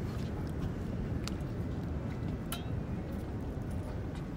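Steady low outdoor rumble with two short sharp clicks, about a second in and again midway.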